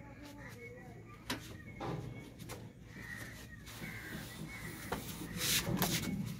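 Handling noise from a Pulsar motorcycle being manhandled up onto a boat: a few separate knocks and clatters, then a louder scraping rustle near the end as the front wheel is hoisted up.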